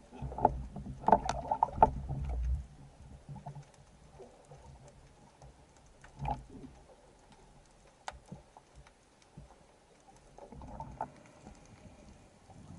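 Underwater recording of a spearfisher's movements: muffled knocks and low thumps over the first two and a half seconds, then scattered sharp clicks over a faint background.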